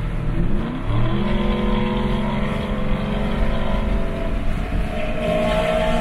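Car engine accelerating, its pitch rising over the first second, then running steadily at speed, heard from inside a car's cabin. A higher engine note comes in near the end.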